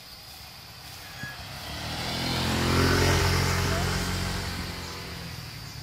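Small motor scooter passing close by: its engine and tyre noise swell to a peak about three seconds in, then fade away.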